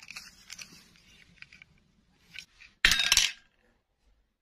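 A small plastic doll and her dress dropped into a white dish, a brief loud clatter of clinks about three seconds in. Before it come faint rustles and small clicks of the pieces being picked out of grass.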